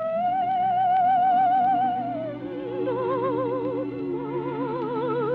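Orchestral bridge music: a melody enters on a long held note with wide vibrato, then steps down to lower notes after about two seconds, over sustained chords.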